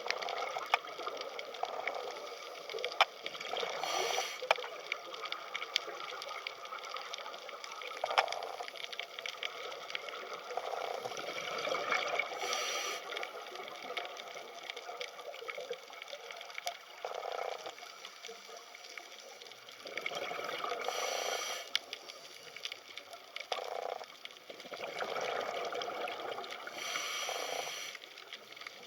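Water trickling and splashing, with many small clicks and louder noisy swells every few seconds.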